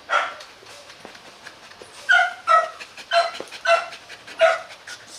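Rottweiler whining in an eager greeting: one cry right at the start, then a run of five short high-pitched whines from about two seconds in.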